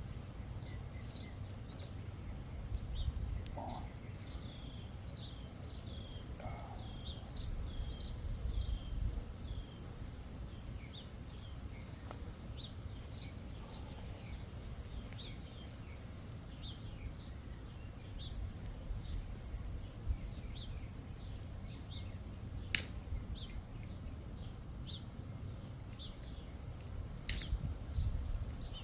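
Outdoor chorus of many short, high chirps repeating irregularly, with two sharp pops in the second half, the second near the end, as from the campfire crackling.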